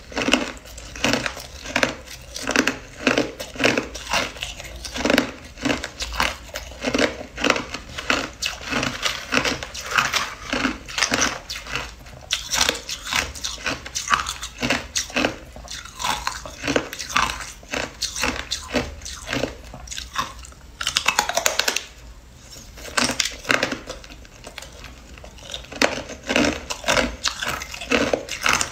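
Hard clear ice being bitten and chewed: crisp crunching in a quick, even rhythm, with a short lull near the end.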